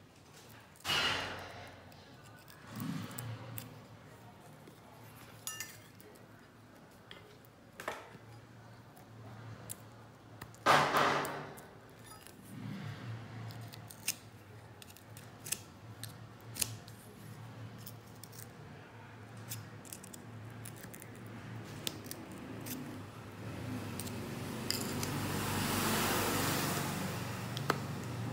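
Bicycle being worked on with metal hand tools: scattered clicks and clinks of metal parts. Two louder rushing bursts come about a second in and about eleven seconds in, and a rush of noise swells toward the end.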